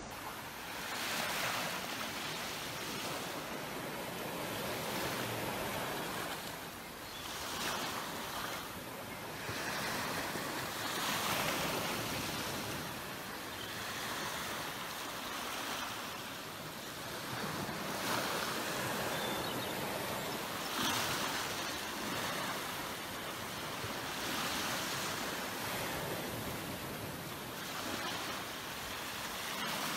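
Small waves washing in on a sandy beach, the surf swelling and falling back every few seconds.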